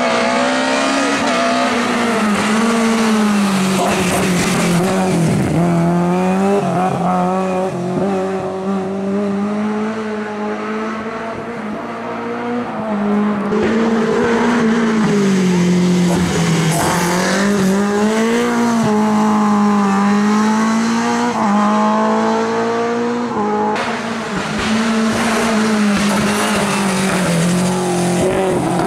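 Lada 2107 rally car's four-cylinder engine at full racing revs through corners, its pitch rising and falling again and again as the driver lifts, shifts and accelerates.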